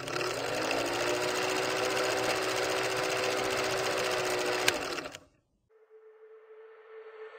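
Film projector clatter: a steady, rapid mechanical rattle that stops about five seconds in. A faint steady hum follows.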